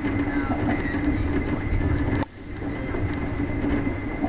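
Train running at speed, heard from inside the carriage: a steady low rumble of wheels on rail with a constant hum. The noise drops away briefly for a moment about two seconds in, then returns.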